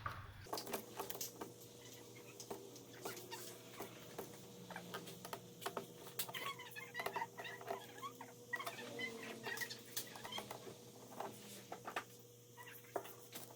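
Scattered light clicks and taps with a few faint squeaks as a TV's circuit board is handled and taken out.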